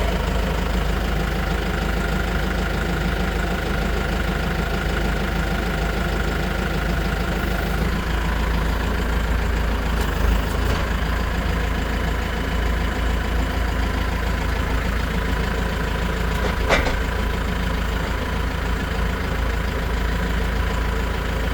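Tractor's diesel engine idling steadily, with one sharp click near the end.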